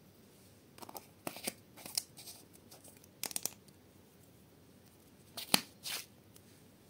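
Short plastic clicks and scrapes of a small glitter jar being handled and its white screw cap twisted, in clusters about a second in, around two, around three and a half, and loudest near five and a half seconds.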